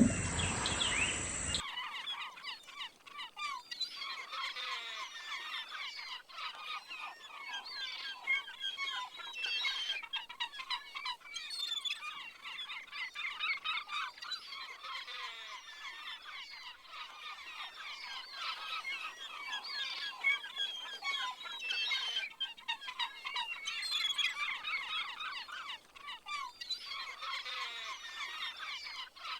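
Dense, continuous chorus of many small birds chirping and peeping. A loud low animal call carrying over from before cuts off about a second and a half in.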